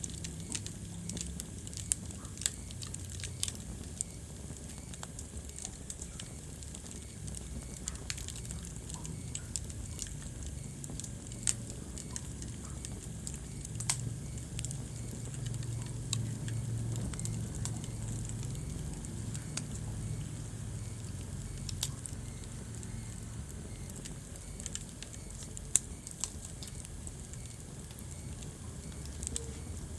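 Wood fire burning in a fireplace: irregular crackling with sharp pops now and then over a low, steady rumble of the flames.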